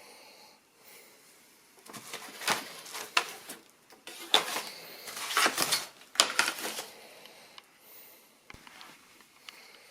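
Handling noise: irregular bursts of rustling and clatter from about two seconds in until about seven seconds, then a few scattered clicks.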